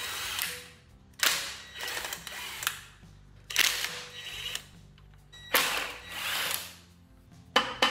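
Cordless Ryobi power driver with a socket spinning out the timing-cover bolts of a Toyota 20R engine: four separate runs of a second or so each. Near the end, a couple of sharp knocks begin.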